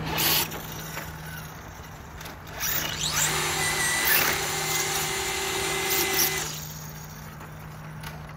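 Electric motor of a radio-controlled car whining, with tyre noise on asphalt, as the car drives past for about four seconds. The whine rises in pitch about three seconds in, then holds steady before fading; a short loud burst comes right at the start.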